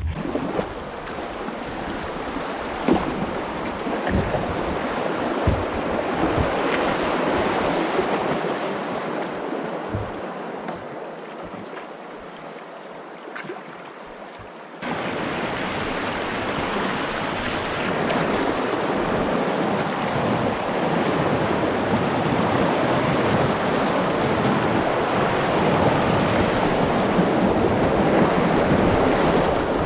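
White water rushing in a river rapid around a canoe, a steady loud rush that cuts in suddenly about halfway through. Before that comes quieter moving water with some wind on the microphone and a few light knocks.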